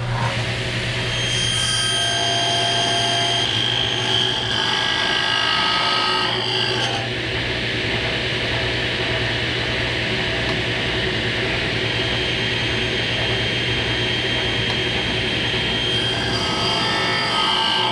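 Table saw running and cutting partway into a 2x4, the blade raised only a little. A steady motor hum sits under the sound of the blade working through the wood, busiest in the first several seconds and again near the end.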